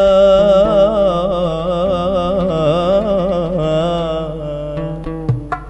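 A singer holds a long, ornamented wordless vocal line with a wavering pitch over a low sustained accompaniment, fading toward the end. Near the end, sharp hand strokes on a darbuka goblet drum come in.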